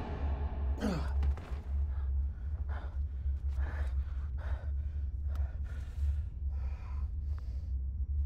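A man breathing hard after a struggle: a falling gasp about a second in, then a run of heavy, ragged breaths, over a steady low hum.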